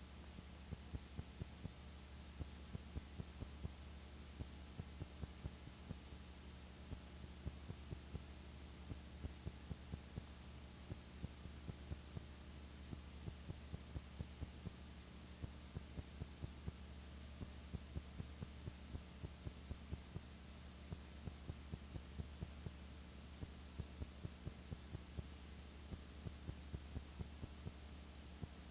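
Steady low electrical hum with faint clicks ticking about four times a second in short runs separated by brief gaps: the background noise of a silent home-movie transfer that has no sound of its own.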